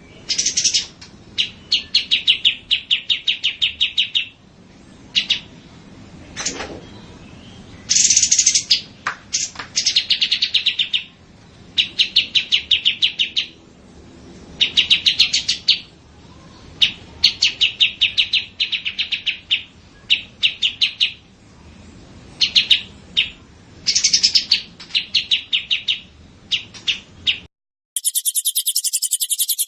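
Small songbird calls in quick trains of repeated chirps, in bouts of a second or two with short gaps between them. Near the end, after a brief drop-out, a different dense, fast-pulsing, high-pitched trilling takes over.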